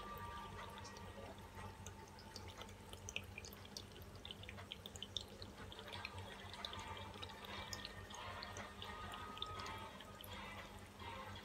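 Acrylic pouring paint dripping off the corner of a tilted canvas onto the table: faint, scattered small drips and ticks over a steady low hum.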